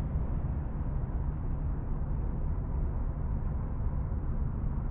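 A steady low rumble with no clear events, strongest in the deep bass.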